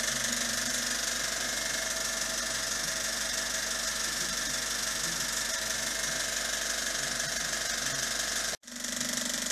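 Historic FC1 cinema projector's mechanism running steadily on a mechanical test run. It cuts out suddenly for a moment near the end, then carries on.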